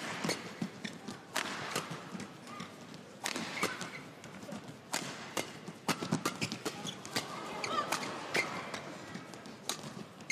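Badminton doubles rally: rackets hitting the shuttlecock in quick, irregular succession, with players' feet thudding and shoes squeaking on the court.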